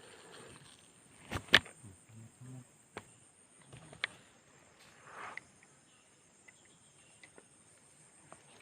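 Steady high-pitched insect drone, with a few sharp clicks or knocks; the loudest comes about one and a half seconds in.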